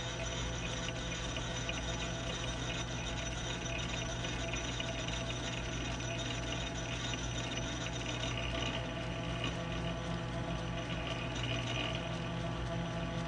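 Metal lathe running steadily, its spindle turning the bar stock while a parting tool cuts it off to length, with cutting oil applied.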